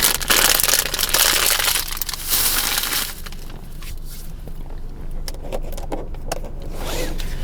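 Plastic candy bag crinkling as it is handled, dense for the first three seconds, then a few lighter rustles and ticks, over a steady low hum.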